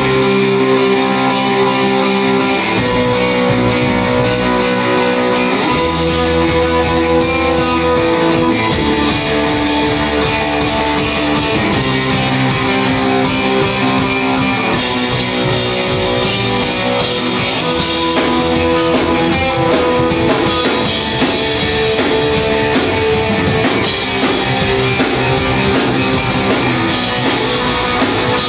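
A live rockabilly/psychobilly band plays an instrumental surf-rock number: electric guitar, upright double bass and drum kit. The guitar opens alone, and the drums and bass come in fully about six seconds in, with steady cymbal beats from then on.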